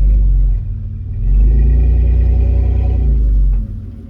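Toyota 4Runner engine revving to pull a stuck lawnmower on a tow chain: a short burst, then a longer rev of a couple of seconds that eases off near the end as the chain's slack is taken up.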